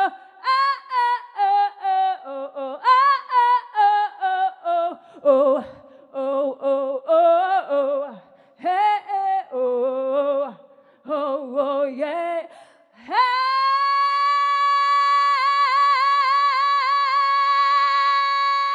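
Unaccompanied singing: quick runs of short sung syllables, then a high female voice holds one long note that wavers in pitch and cuts off at the end.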